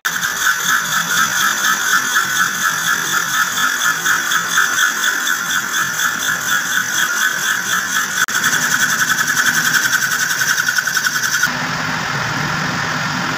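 Metal lathe running with its tool bit cutting into a spinning wooden disc, a high cutting sound that pulses about three or four times a second. About eleven and a half seconds in, the cutting sound drops away and the lathe runs on more steadily.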